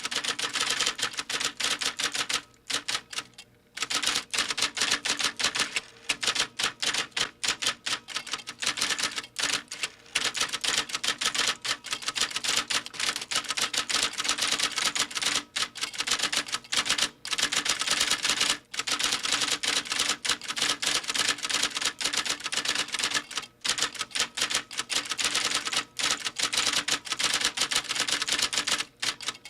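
Fast, continuous typing on keys: dense runs of rapid key clicks broken by short pauses, the longest a little over a second, about three seconds in.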